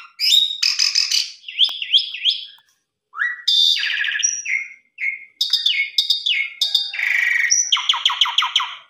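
Javan pied starling (jalak suren) singing a varied, loud run of chattering notes, whistles and rising slurred calls with short pauses. It ends in a fast rattling phrase of about seven notes a second.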